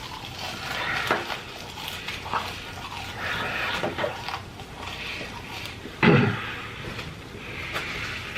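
Close-miked eating and food handling: irregular clicks and crackly rustles, with one louder low thump about six seconds in.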